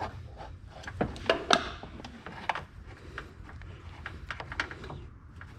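A few sharp metallic clicks and knocks from a hydraulic crimp tool being opened and the freshly crimped battery-cable terminal handled, the two loudest close together about a second and a half in, over a steady low hum.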